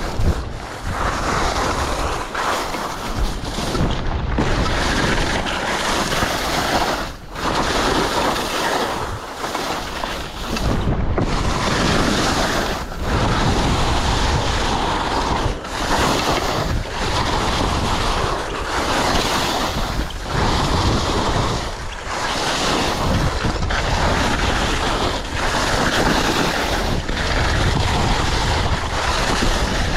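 Wind rushing over a GoPro's microphone during a fast ski run, mixed with skis scraping through soft snow. The rush eases briefly every second or two.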